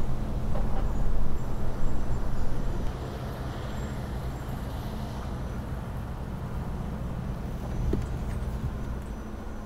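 Urban road-traffic rumble: a steady low drone of motor vehicles with a hum underneath. It is louder and more uneven for about the first three seconds, then settles steadier and a little quieter.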